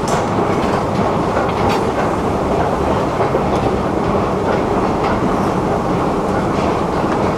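Steady, loud mechanical rumble with a few faint, irregular clicks.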